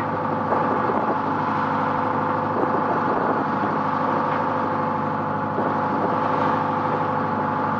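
A steel trawler's inboard engine running steadily while under way, a constant even hum with no change in speed.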